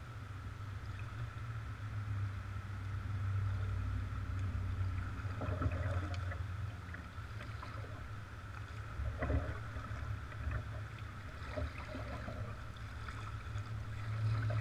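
Kayak paddle strokes: splashes and drips of water a few seconds apart, over a steady low rumble.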